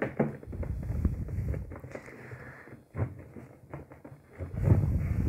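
Clear plastic blister packaging and its cardboard backing crinkling and scraping as fingers pry them apart, in irregular rustles and small clicks, loudest near the end.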